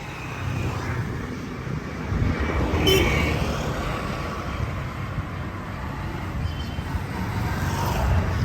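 Motor-vehicle rumble with road noise, a vehicle going past close by, loudest about two to three seconds in.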